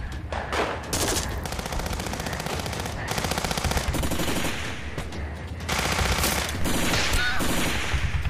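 Several long bursts of rapid automatic gunfire, with short breaks between them, over a steady low rumble.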